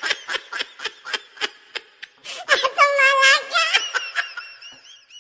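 High-pitched laughter: a quick run of short giggles, rising into one held squealing laugh about two and a half seconds in, then tailing off and fading near the end.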